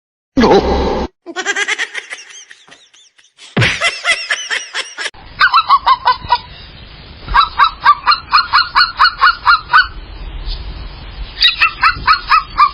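Runs of rapid, repeated honking calls, about four a second, coming in several bursts, after a few short, loud, unrelated sounds from clips cut together.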